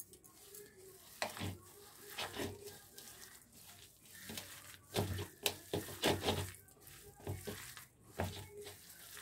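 A hand squeezing and tossing a moist mix of soaked soya chunks, cornflour and chopped vegetables in a bowl: irregular wet squishing and rustling strokes, a few more in quick succession around the middle.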